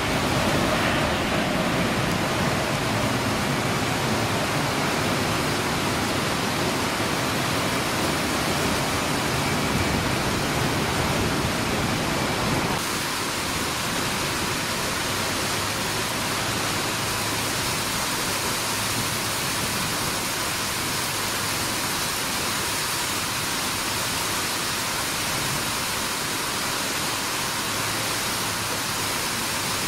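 Steady rushing roar of a Boeing 787 jet airliner climbing out after takeoff, blended with the hiss of rain. About 13 seconds in it cuts abruptly to a quieter, even rain hiss with a faint low hum.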